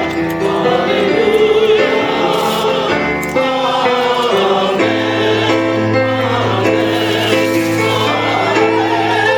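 A choir singing a slow song with instrumental accompaniment, voices holding long notes over a low bass line.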